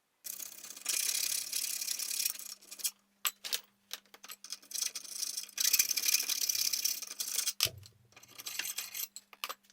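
Hand file rasping inside a metal bar, enlarging the inside so an inner bar fits precisely. It scrapes in three long stretches, with short scrapes and clicks between them.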